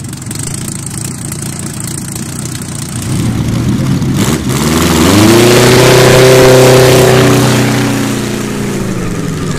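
Napier Bentley's 23.9-litre three-bank W12 aero engine running, then revving up hard as the car launches with wheelspin. It holds a loud deep note for a few seconds, then falls in pitch and fades as the car pulls away.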